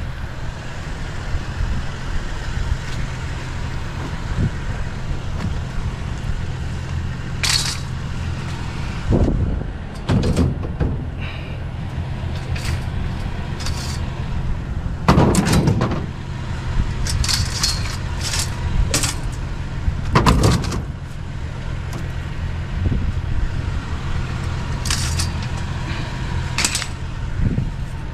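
A vehicle engine idling steadily, with irregular clanks and knocks from scrap being handled and loaded, the loudest about halfway through and again a few seconds later.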